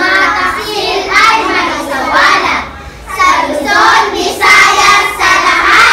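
A group of schoolchildren's voices in unison, chanting or singing a piece together in short phrases with a brief pause about three seconds in.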